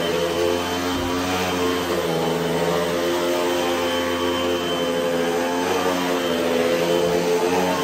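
Hoover WindTunnel upright vacuum cleaner running on carpet: a loud, steady motor whine over rushing air, its pitch shifting slightly now and then.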